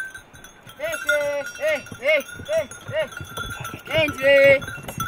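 Goat neck bells ringing steadily in a herd, with a run of about eight short rising-and-falling calls, about two a second, the last one longer and wavering.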